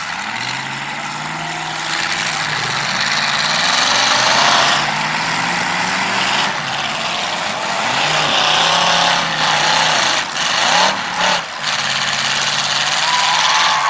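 Several demolition derby cars' engines running and revving together, their pitch repeatedly rising and falling as the cars push and maneuver in the arena.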